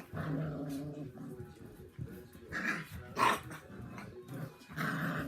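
Dogs growling, with a few short barks.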